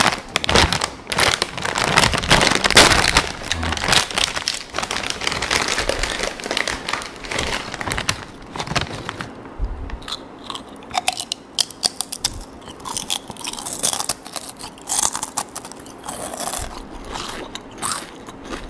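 A person biting and chewing crunchy snack chips close to the microphone, mukbang-style. The crunching is dense for about the first half, then thins out to separate crunches.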